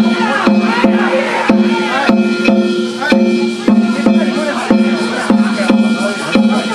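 Danjiri festival float's hayashi: a drum and ringing metal gongs struck together in a steady beat about twice a second, with voices shouting over it.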